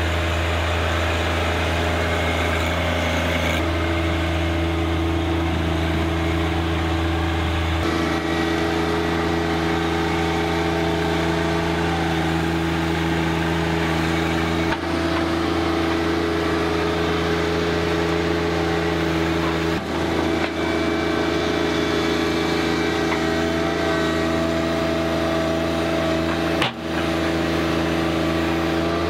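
John Deere 1025R compact tractor's three-cylinder diesel engine running steadily while it works dirt with the loader and a box blade. Its pitch and level shift abruptly a few times.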